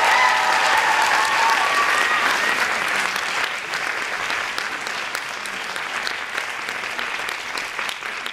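Audience applauding, with a high held cheer over the first two seconds; the clapping slowly thins and quietens toward the end.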